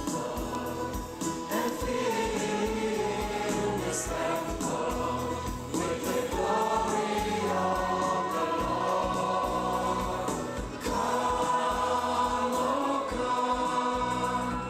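Gospel choir singing a worship song over band accompaniment with a steady beat.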